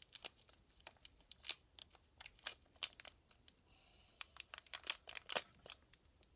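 Thin yellow LDPE plastic blind bag being pulled open and crumpled in the hands: irregular, quick crinkles and crackles.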